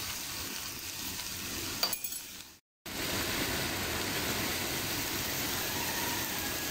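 Grated carrots and onion frying in oil in a non-stick pan with a steady sizzle, stirred with a metal spoon that clinks against the pan a few times about two seconds in. The sound cuts out for a moment just before the three-second mark, then the sizzle resumes.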